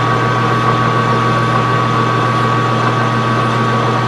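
Small metal lathe running steadily, a constant hum with a thin steady whine, as a flat file is held against the spinning aluminum workpiece.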